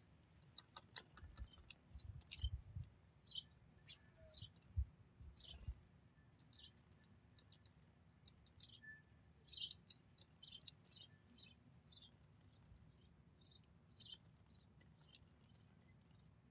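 Faint, short chirps of small songbirds, repeated irregularly throughout, with a few soft low thumps in the first six seconds.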